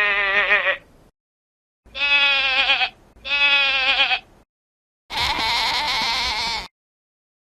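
Goat bleating: a call that ends about a second in, then two wavering bleats in quick succession, then a longer, harsher, more strained bleat.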